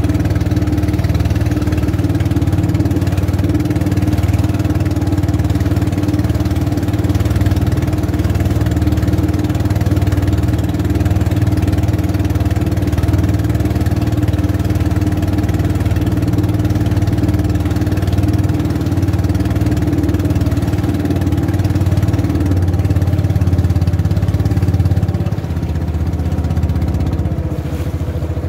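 Small boat's engine running steadily underway, a constant low hum with a steady pitch that eases slightly near the end.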